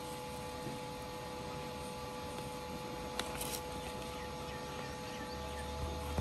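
Steady electrical hum with two held tones over a faint hiss; a single click about three seconds in, and a low rumble comes in near the end.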